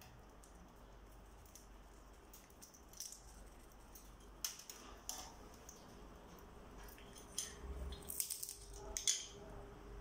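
African grey parrot picking through peanuts in a steel bowl with its beak: scattered clicks and rattles of nuts against metal, coming more often in the second half.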